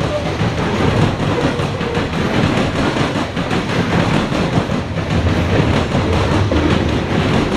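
Norfolk Southern coal cars rolling past close by: a steady, loud rumble of steel wheels on rail, with rapid clicking and clatter from the wheels and trucks.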